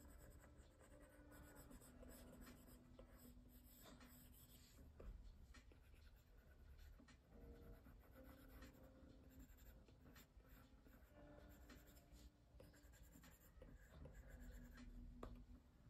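Faint tapping and scratching of an Apple Pencil tip on an iPad's glass screen as strokes are drawn.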